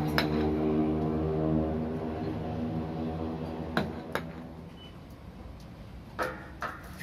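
Sharp metallic clinks and knocks of steel roof-frame bars being handled and struck against each other, a handful of separate hits, two close together near the end. A steady drone of several held tones fades out in the first half.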